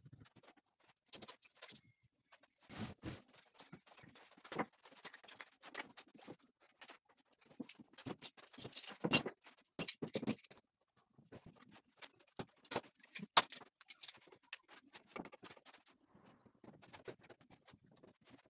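Irregular light clicks, taps and short scrapes of hand work on wood, with two sharper knocks about nine and thirteen seconds in.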